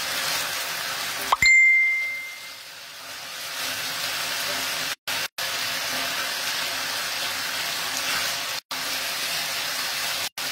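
Chicken rolls sizzling as they fry in a pan. About a second and a half in, a metal utensil strikes the pan with a sharp click that rings on as a short, clear ding. The sound cuts out briefly three times.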